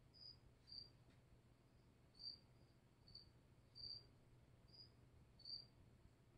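A cricket chirping faintly: short, high chirps, about seven of them, at uneven gaps of half a second to a second and a half.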